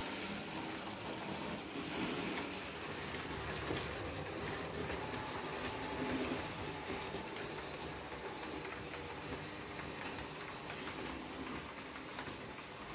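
Märklin H0 model train running on the layout's track: a steady, quiet rumble and hum of wheels and motor.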